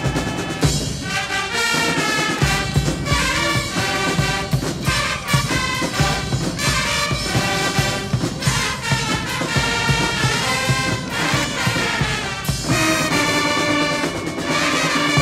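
Brass band playing live: a brass melody of held and changing notes over a steady low drum beat.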